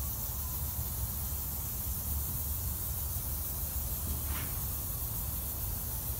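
Aerosol can of spray contact adhesive hissing steadily as it is sprayed, over a steady low rumble.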